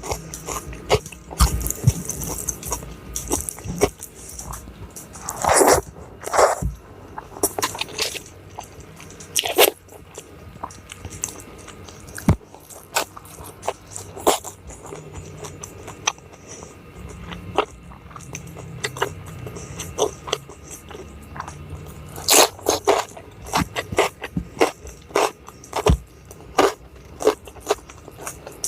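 Close-up eating: a person biting into and chewing crunchy food, likely raw lalapan vegetables. The crisp crunches and clicks come in irregular clusters, with louder, longer crunches about six seconds in and again around twenty-two seconds.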